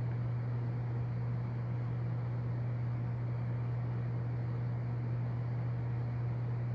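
A steady low-pitched hum with an even hiss beneath it, unchanging throughout.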